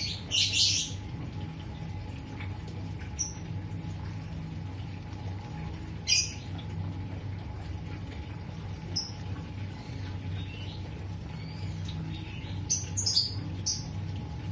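Hands rubbing and lathering a wet cat's soapy fur during a bath, over a steady low hum, with about six short, very high squeaks scattered through, several of them close together near the end.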